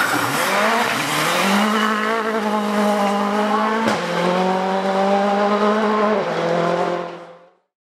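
Rally car engine revving up and down quickly, then held at high revs at a steady pitch. The pitch drops a step about four seconds in, with a click, and again about six seconds in, with tyre squeal. The sound fades out near the end.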